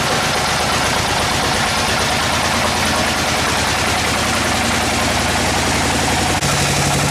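Sawmill machinery running: a steady engine drone under a broad hiss. It switches abruptly to a steadier, higher hum about six and a half seconds in.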